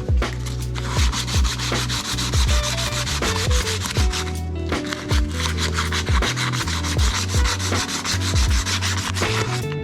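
Background music with a regular beat and a deep bass line that moves in steps, over a continuous scratchy, rubbing texture.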